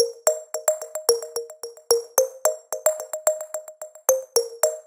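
Background music: a quick synthesizer melody of short plucked notes with sharp attacks, about four or five a second.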